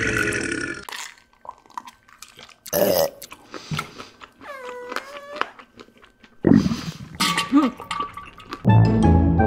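A loud belch that breaks off about a second in, followed by wet chewing clicks and smacks, a short whining vocal sound, and a second long, low gassy noise. Music with a plucked double bass starts near the end.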